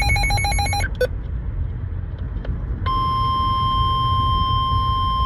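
NOAA Weather Radio emergency alert tones over a low radio hiss. A rapid pulsing burst of electronic beeps ends just under a second in and is followed by a short blip. About three seconds in, the steady 1050 Hz warning alarm tone starts, signalling that a new warning message follows.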